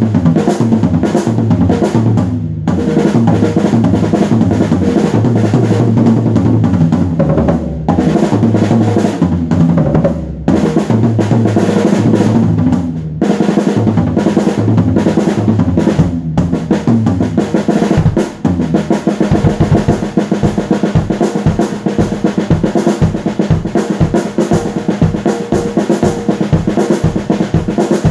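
Loud drum-kit music with snare and bass drum over a low line that steps from note to note. About two-thirds of the way in it changes to rapid, even bass-drum strokes.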